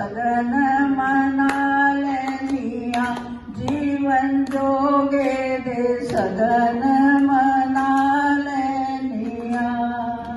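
Singing in long, held, wavering notes, with scattered sharp taps or clicks over it.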